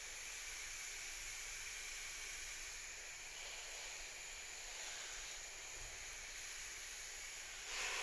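Water spraying from a garden hose nozzle: a steady hiss that grows louder and rougher near the end.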